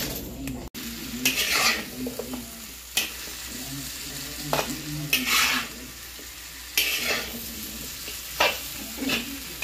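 Mixed vegetables stir-frying in a wok, with a steady sizzle. A metal spoon scrapes and tosses them in strokes about every second or so.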